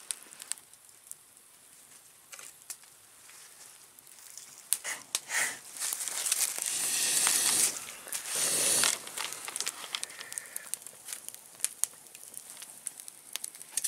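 Wood fire crackling, with scattered sharp pops and snaps. About six seconds in come two longer rushing bursts of noise, the louder of the sounds, a second or two each.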